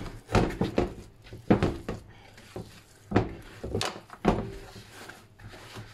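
Yeast dough being kneaded by hand in a plastic bowl, with rapeseed oil being worked in: irregular soft thumps, roughly one a second, as the hand presses and turns the dough and the bowl knocks on the counter.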